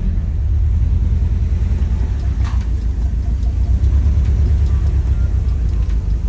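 Nissan 180SX's SR20DET turbo four-cylinder running rough with an uneven, lumpy low chugging, like a lawnmower: the sign of a misfire.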